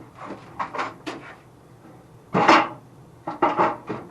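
A few knocks and a short clatter as things are handled, the loudest about two and a half seconds in.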